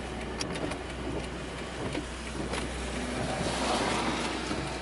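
A car's engine running with a steady low hum under an even rush of noise from inside the cabin, with a few faint clicks. The rush swells briefly near the end.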